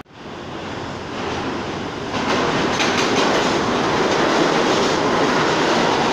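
New York City subway train running into the station alongside the platform: its rumble builds and becomes a loud steady run about two seconds in, with wheel clatter over the rail joints.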